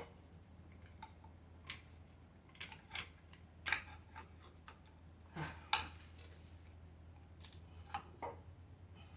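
Scattered light metallic clinks and scrapes of a pry bar and hand tools against the engine's metal parts, the loudest pair about five and a half seconds in, over a steady low hum.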